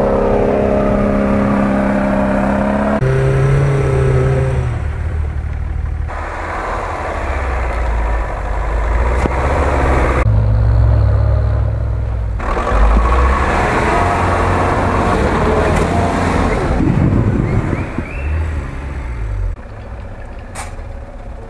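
Off-road vehicle engines revving hard under load in deep snow, in several short clips cut one after another. First an SUV works its way through the snow, then a GAZ-66 truck.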